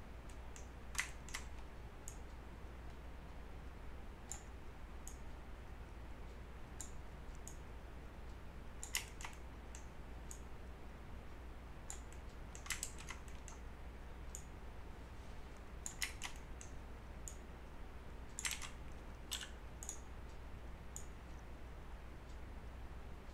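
Irregular clicks from a computer mouse and keyboard, some in quick pairs, spaced about a second or more apart, over a low steady hum.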